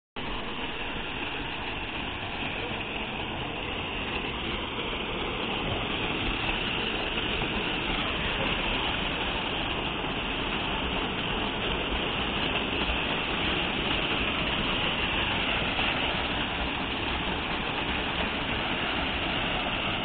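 Small waterfall pouring into a rock plunge pool: a steady rushing splash of falling water, growing a little louder over the first several seconds.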